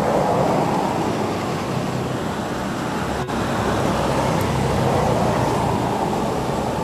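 Steady low rumbling background noise, with a brief break about three seconds in.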